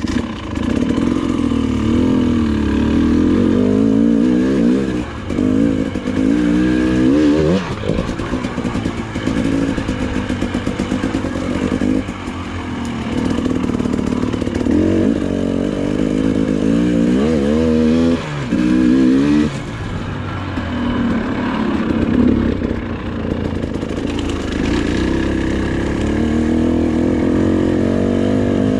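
Dirt bike engine running as it is ridden along a trail, revving up and dropping back again and again, with a few sharp climbs in pitch.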